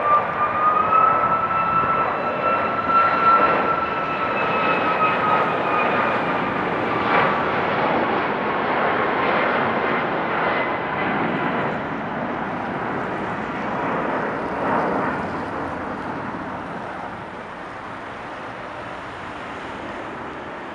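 Boeing 737-8 MAX's CFM LEAP-1B turbofan engines running at go-around climb thrust. It is a jet rumble with a high fan whine that slowly drops in pitch and fades as the airliner climbs away.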